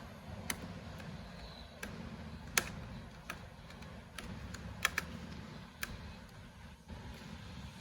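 Irregular light clicks and taps, one sharper than the rest about two and a half seconds in, from a screwdriver and small screws being worked into a laptop's drive bay, over faint low background noise.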